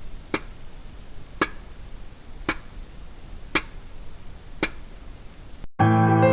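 Five sharp, evenly spaced ticks about a second apart over a faint steady hiss, like a slow clock ticking. Background music starts near the end.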